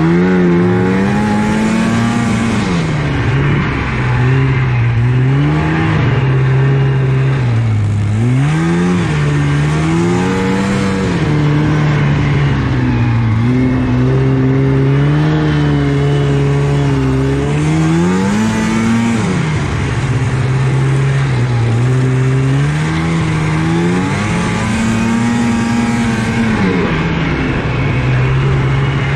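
1983 Yamaha SS 440 snowmobile's two-stroke engine under race throttle, heard from on the sled, revving up and easing off again and again, its pitch rising and falling every few seconds.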